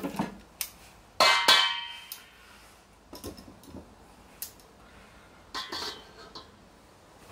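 Metal objects clanking as they are handled and set down: a sharp clank with a brief metallic ring about a second in, then a few lighter clinks and taps through the middle and near the end.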